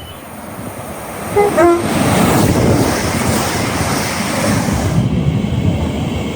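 A passing train sounds a short two-tone horn, a higher note then a lower one, about a second and a half in, then runs past loudly with a steady rushing noise.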